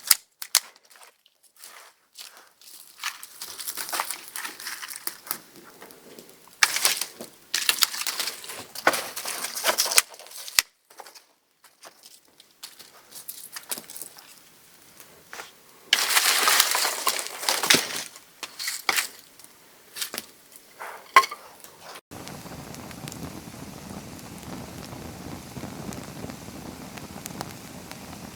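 Small kindling fire catching, with irregular sharp crackles and pops and several louder bursts of crackling and rustling. About 22 s in it changes abruptly to a steady hiss.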